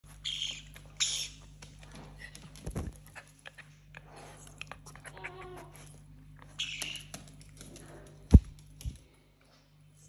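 Black-headed caique giving short harsh squawks, two close together at the start and another about two-thirds through, among scattered scuffs and clicks as a poodle moves around it. Two dull thumps, the louder one near the end.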